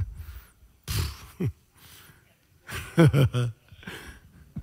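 A man laughing in short breathy bursts, close on a headset microphone, about a second in and again around three seconds in.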